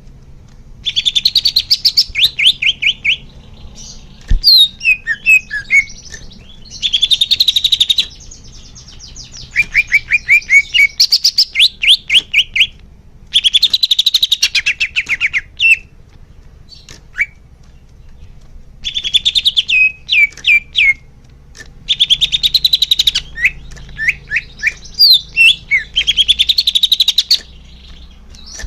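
Green leafbird (cucak hijau) singing: loud phrases of fast repeated chirps, trills and sweeping whistles, each lasting a second or two, separated by short pauses.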